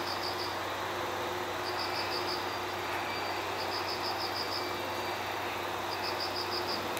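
An insect chirping in short trills of five or six quick high pulses, repeating about every two seconds, over a steady low hum.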